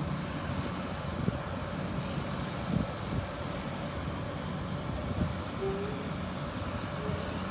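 Bulldozer's diesel engine running steadily at work, with a few short knocks over it.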